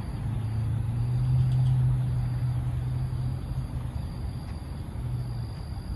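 A vehicle engine idling: a low, steady hum that grows louder about a second in and eases off after about three and a half seconds.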